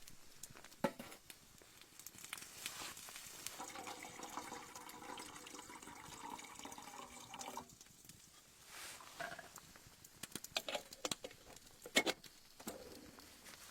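Liquid being poured into a container for about four seconds, with a steady ringing fill tone, amid several sharp clicks and knocks of handled cookware, the loudest near the end.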